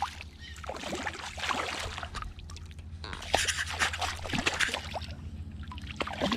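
Water splashing and dripping in irregular spells as a small rainbow trout is held and unhooked at the water's surface.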